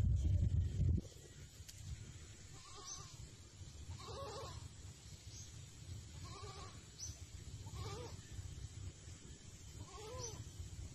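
A low rumble for about the first second, then an animal calling five times, short wavering calls a second and a half to two and a half seconds apart.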